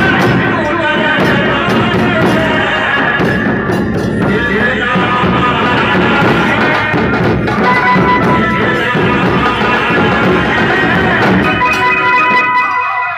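Several large barrel drums (dhol) beaten with sticks in a fast, loud, unbroken rhythm, typical Muharram procession drumming.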